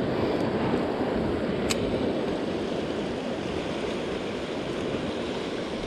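Shallow river rushing steadily over rocks in a riffle, with a single brief click about two seconds in.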